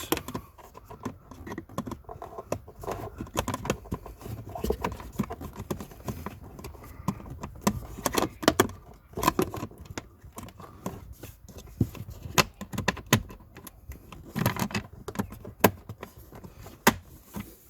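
Plastic pollen filter housing cover being handled and refitted under a car dashboard: repeated sharp plastic clicks, knocks and light rattles as it is worked onto its retaining tabs.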